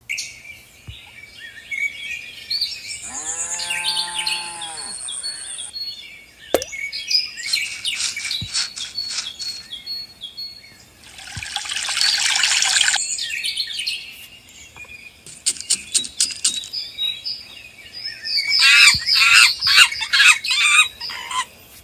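Birds chirping and trilling in repeated bursts of short high calls, with one drawn-out lower call about three seconds in.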